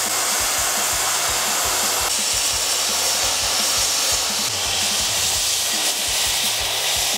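Plasma cutter cutting steel plate, a steady loud hiss of the air-plasma jet, trimming and squaring the edge of a steel hull stiffener.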